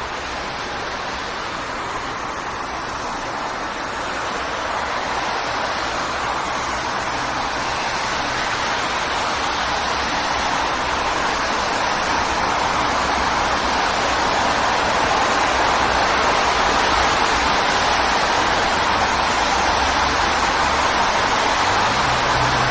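Steady wash of city street traffic, tyre and engine noise blending together, slowly growing louder over the first fifteen seconds as traffic builds or draws near. A low engine hum comes in near the end.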